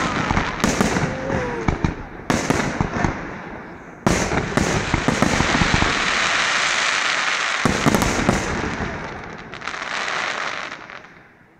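Aerial firework shells bursting one after another: several sharp bangs, each followed by a dense crackle of stars that swells through the middle and dies away near the end.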